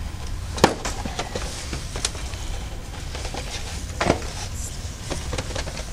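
Scattered sharp clicks and knocks, the loudest about half a second in and another about four seconds in, over a low steady rumble.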